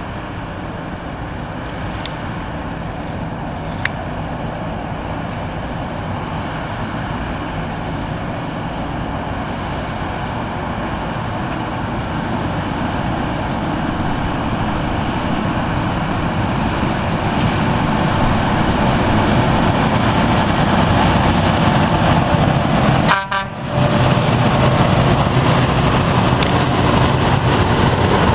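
Loram rail grinder train running as it moves along the track, a steady heavy rumble that grows gradually louder as it comes closer, briefly cutting out about 23 seconds in.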